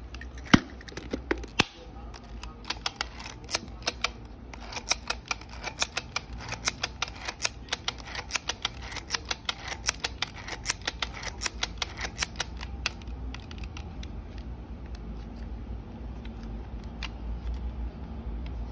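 Fujifilm K-28 film camera's film-advance mechanism clicking in a fast, even run of ratchet clicks for about ten seconds, then stopping. The winder is working freely after being oiled and cleaned, having failed to wind the film properly before.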